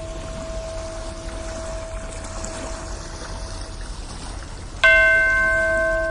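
Steady wash of ocean-wave water noise with a ringing bell tone fading out; near the end a bell is struck loudly and rings on with several clear pitches.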